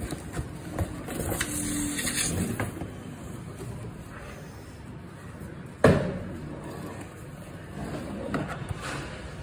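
Cardboard and plastic packaging of a keyboard box being handled and rustled, with a single sharp knock about six seconds in.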